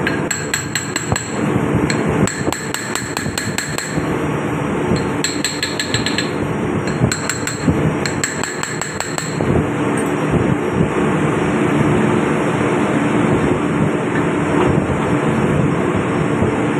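Bursts of quick metallic hammer taps on steel, several strikes a second, with a high ring. They stop about halfway through, leaving a steady hum of ship's engine-room machinery.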